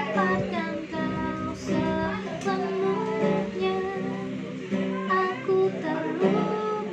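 A child singing a pop song to a strummed acoustic guitar.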